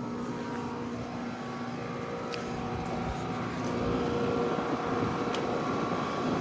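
Two 1.5-ton Trane XR14 heat pump outdoor units running together: a steady hum of compressors and condenser fans with several fixed tones, getting slightly louder over the few seconds.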